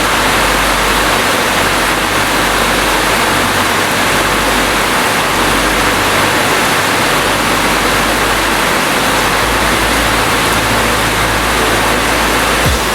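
Steady rain, a dense even hiss with no single drops standing out.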